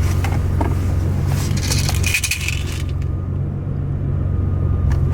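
Steady low drone of a car's engine heard inside the cabin, with a brief rustling clatter about a second and a half in.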